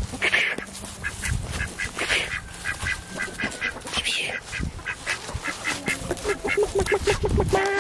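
Ducks quacking in a quick run of short calls, about three a second, with a few louder quacks among them; near the end a rooster starts to crow.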